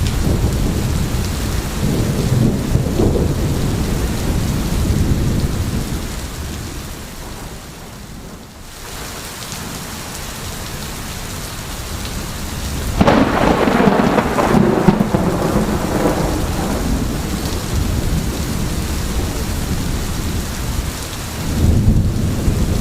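Rain falling steadily with rolling thunder. The rumble eases for a few seconds, then a loud thunderclap breaks just past the middle and rolls away, and the low rumbling swells again near the end.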